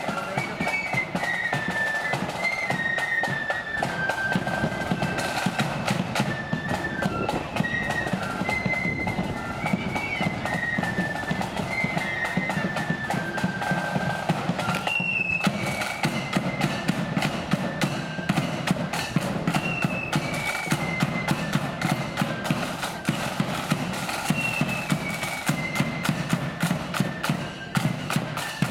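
Marching flute band playing a tune: a high flute melody over side drums and a bass drum keeping a steady marching beat.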